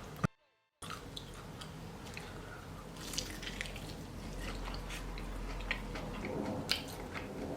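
Person biting into and chewing a crispy fried chicken wing, with small crunchy, wet clicks and no talk. The sound drops out completely for about half a second near the start, at a cut.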